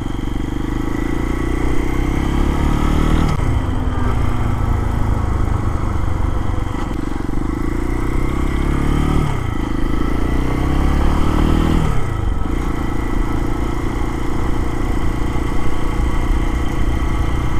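Lifan KPX250's single-cylinder four-stroke engine pulling the motorcycle up through the gears. Its pitch climbs and then drops sharply at each of about three upshifts.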